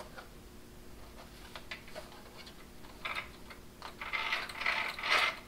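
Handling noises from a hobby-grade RC buggy being turned over and worked by hand: faint light clicks, then several short scraping, rustling bursts in the last two seconds.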